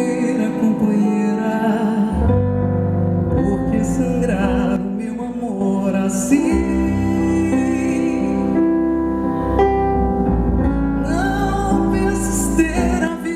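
Live band music with a woman singing over it, a deep bass coming in about two seconds in.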